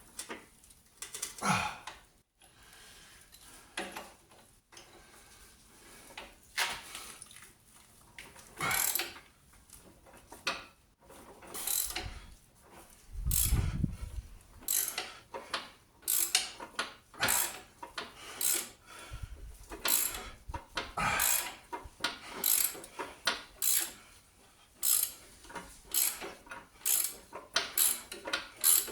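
Hand ratchet wrench clicking through repeated back-and-forth strokes, roughly one to two a second, as a corroded bolt on a Jaguar XKR rear subframe is worked loose. A brief low rumble comes about halfway through.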